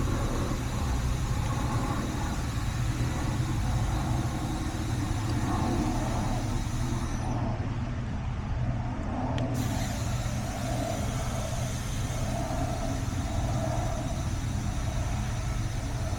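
Nitrogen flowing from a cylinder regulator through gauge hoses into an AC line set, a steady hiss over a low rumble, as the system is pressurized to about 250 psi for a leak test.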